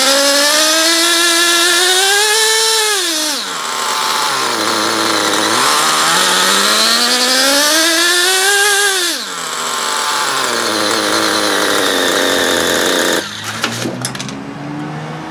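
Small two-stroke nitro RC engine, an HPI Nitro Star G3.0 .18, revved on the bench twice: each time the pitch climbs steadily for two or three seconds and then falls quickly back to a low idle. About thirteen seconds in the engine sound drops sharply in level, with a few light clinks after it.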